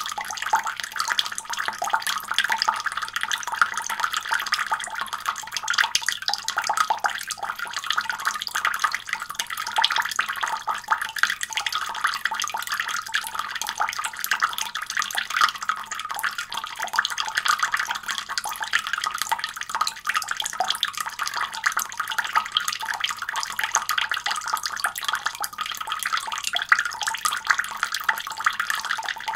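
Water running from a leak in a continuous stream, with many small splashes close together.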